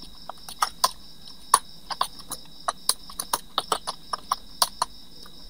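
Computer keyboard typing: an irregular run of key clicks, about three or four a second, over a faint steady high whine.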